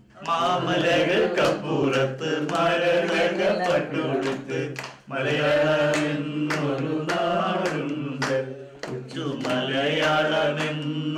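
Singing or chanting over a steady low drone, with frequent sharp percussion strikes and a brief break about five seconds in.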